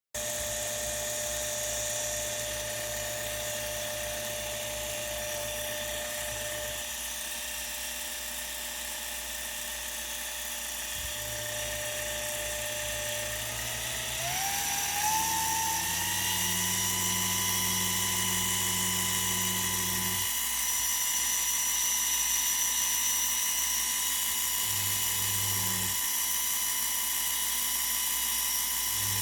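Small DC motor of a DIY mini table saw kit running with a steady high whine. About halfway through it speeds up, the whine rising smoothly in pitch over a couple of seconds, then holds steady at the higher pitch.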